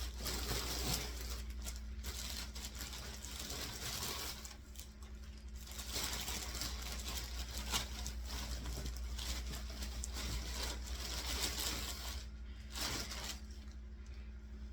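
Rustling and crinkling of fluff stuffing being pushed by hand into a cloth doll body, with short pauses twice.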